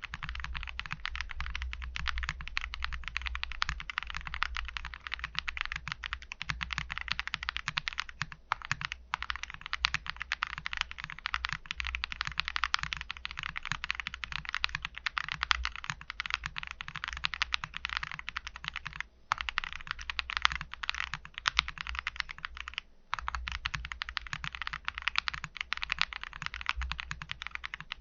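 Tiger 80 Lite mechanical keyboard with stock, unlubed Akko Cream Yellow linear switches being typed on fast and continuously, a dense patter of key clacks. Typing pauses briefly a few times.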